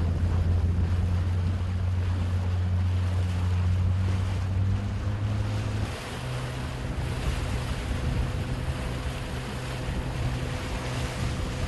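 An engine running steadily with a low drone, its pitch shifting slightly about halfway through, with wind noise on the microphone.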